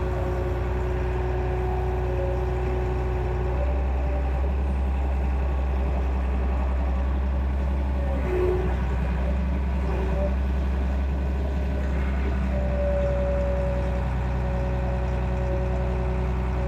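Excavator's diesel engine running steadily, with a steady whine over it; the engine note shifts a little about three and a half seconds in.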